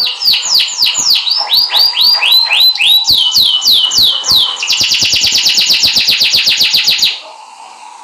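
Domestic canary singing: a run of whistled notes each sliding downward, about three a second, then a fast, even trill from just past halfway that breaks off near the end.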